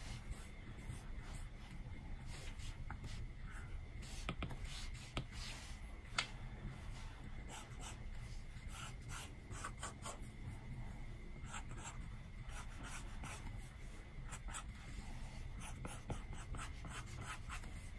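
Apple Pencil tip tapping and stroking on an iPad's glass screen: many quick, irregular taps and short scratchy strokes over a steady low hum.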